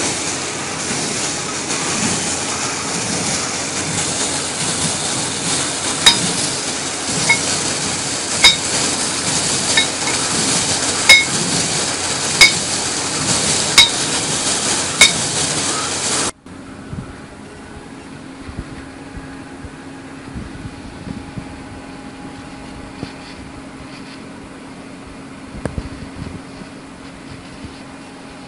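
Water and compressed air gush loudly out of a water well's steel discharge pipe as the well is cleaned by air-lifting, a steady rush with sharp knocks about every second and a half in its second half. About 16 s in it gives way abruptly to a much quieter, steady low machine hum.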